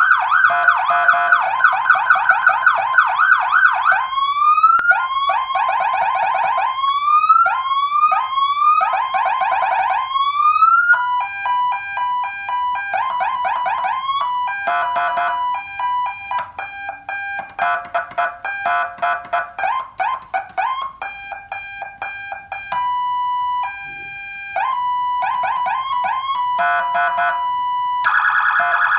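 A 200 W Federal CJB200 electronic vehicle siren module with Whelen-style tones, cycling through its patterns: a fast warbling yelp, then a series of rising wails, then stepped, pulsing two-tone patterns and a brief steady tone, and a fast warble again near the end.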